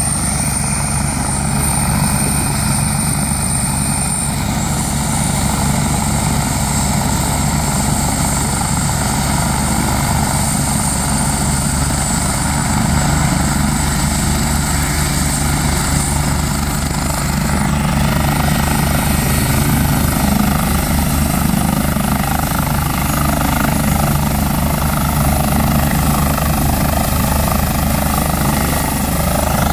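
Medical helicopter running on the ground with its main rotor turning: a loud, steady engine and rotor-blade chop.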